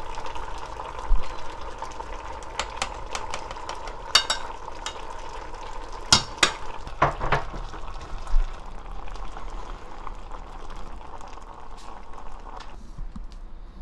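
Zucchini stew bubbling in a pot just after the heat is switched off, with a metal ladle knocking and scraping against the pot several times about four to seven and a half seconds in. The bubbling stops about a second before the end.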